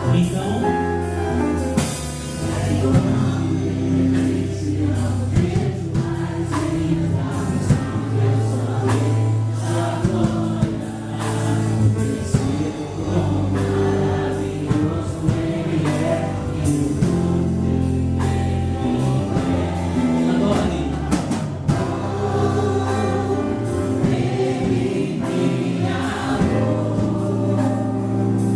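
Live gospel band with several voices singing together over the band, with drum strokes keeping a steady beat.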